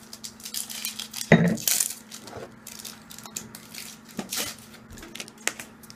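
A drinking glass of rum and Coke being handled and drunk from: a run of small sharp clinks and clicks, with one louder knock about a second and a half in.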